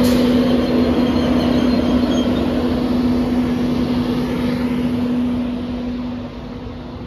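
Class 91 electric locomotive at close range giving a loud, steady electric hum over a broad rushing noise; the hum fades away about six seconds in.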